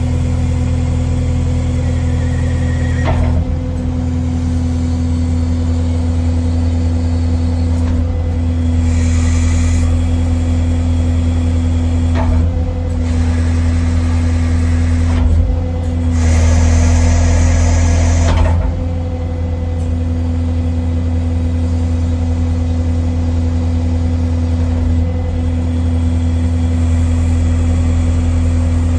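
Kubota skid steer's diesel engine running steadily, with the hydraulic grapple worked a few times: a louder rushing noise comes in for a second or two at a time, most strongly about a third and two thirds of the way through. This is the groany noise the grapple makes when opened fast.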